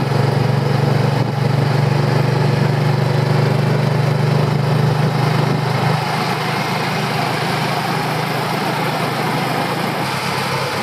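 Small motor scooter engine running steadily under way, with road and wind noise; it eases slightly about six seconds in.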